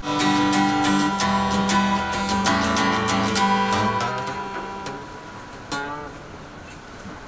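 Acoustic guitar played by hand: a quick run of picked notes that ring into one another, thinning out after about four seconds and fading away, with one last note near the end.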